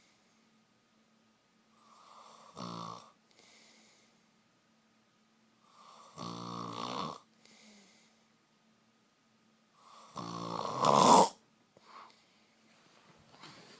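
A man snoring in his sleep: three snores about four seconds apart, each followed by a soft breath out, the last one the loudest.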